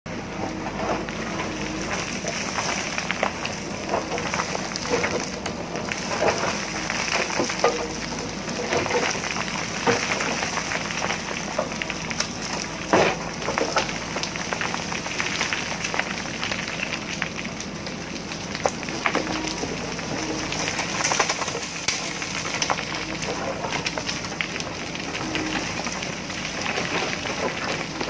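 JCB backhoe loader digging in stony soil: its diesel engine running steadily under many sharp knocks and a constant crackle of rocks and earth scraped by the bucket and tumbling down.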